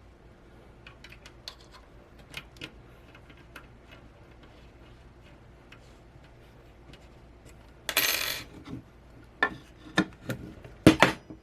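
Small metal parts of a monitor VESA adapter bracket being handled and adjusted with a small Allen wrench: light scattered clicks and clinks, a brief scrape about eight seconds in, then several sharper metal knocks near the end.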